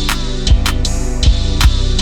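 Background music with a steady drum beat: a deep kick drum and sharp cymbal hits over sustained instrumental tones.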